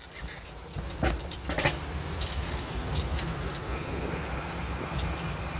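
Bicycle setting off and riding: a steady low rumble of wind on the microphone and the bike rolling, with two sharp clicks or knocks from the bike about one and one and a half seconds in.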